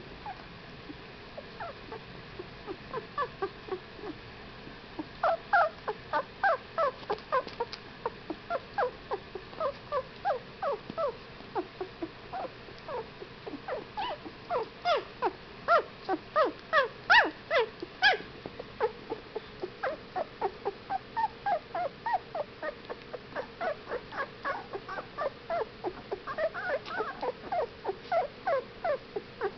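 Two-week-old whippet puppies whimpering and squeaking in short, high cries that fall in pitch, two or three a second, coming thicker from about five seconds in.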